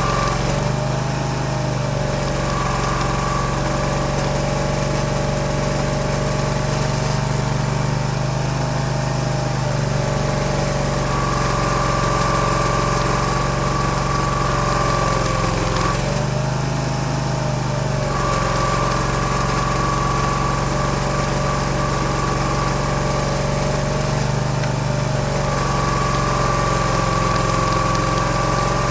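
Barreto E30SGB tracked stump grinder running, its engine under steady load with a high whine; the note dips briefly and the whine drops out and returns in a cycle about every eight seconds, as the cutter wheel works across the stump.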